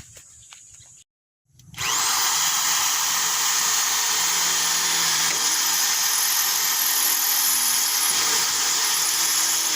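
Electric drill spinning up about two seconds in, then running steadily as it drills a hole.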